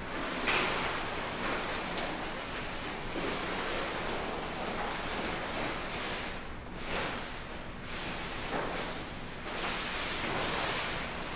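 Large coloured fabric pieces rustling and crumpling as they are folded, lifted and shaken. The rustling swells and ebbs, with louder stretches near the start and towards the end.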